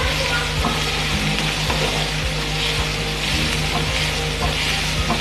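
Sliced onions sizzling in hot oil in a nonstick frying pan as a wooden spatula stirs them, with a steady frying hiss and a few light scrapes. The onions are being fried just until they change colour, not browned.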